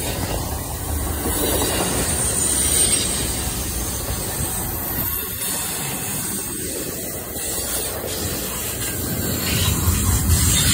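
Double-stack intermodal freight train's well cars rolling past at close range, a steady loud noise of steel wheels on the rails.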